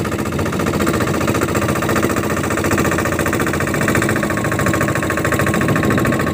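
Engine of a motorized bangka outrigger boat running steadily under way, with a fast, even pulse of firing strokes.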